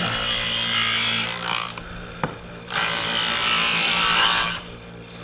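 Chef's Choice electric knife sharpener running with a steady motor hum while the steel blade of an old hand-made knife is drawn through its medium-grit slot: two gritty grinding strokes of about two seconds each, with a short click between them. This is the second stage, honing after the coarse wheel has rebuilt the edge.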